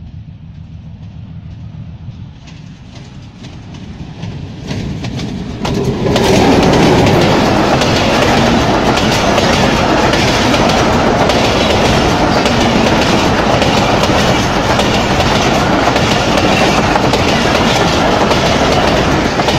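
Passenger train running through a station without stopping: the locomotive's low engine hum grows louder over the first six seconds, then the coaches pass close by with a loud, steady rush and wheel clatter.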